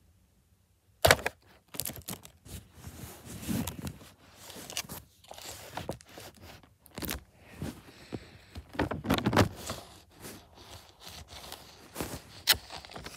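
A foil snack bag crinkling and being handled right against the phone's microphone: a string of sharp crackles, scrapes and knocks that starts about a second in.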